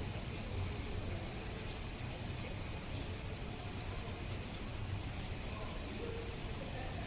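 Steady background hiss with a low hum, with faint distant voices now and then.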